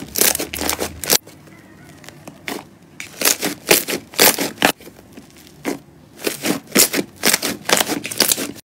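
Slime being squished and worked, giving three runs of quick crackling pops that cut off abruptly just before the end.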